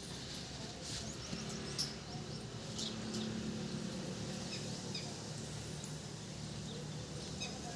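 Pet parrot giving short, quiet chirps, with a few sharp clicks in the first seconds, over a low steady hum.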